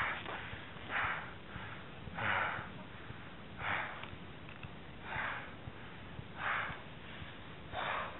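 A mountaineer's heavy breathing at high altitude: about six hard breaths, roughly one every second and a half.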